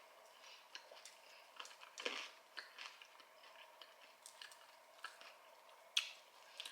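Close-miked chewing: a person chewing food with soft crunches and small wet clicks, a louder crunch about two seconds in and a sharp click near the end.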